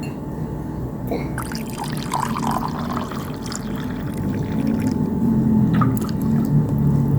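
Water being poured steadily into an instant-noodle cup. A low hum grows under it in the second half.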